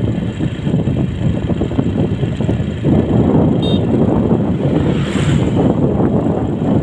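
Wind buffeting the microphone on a moving open vehicle, a loud, steady, low rumble with the running noise of the vehicle mixed in.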